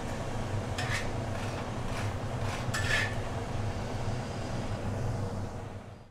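Steady rumble of a gas stove burner under an iron tawa, with oil sizzling around a frying jowar roti, and two brief scrapes of a steel spatula about one and three seconds in. The sound fades out just before the end.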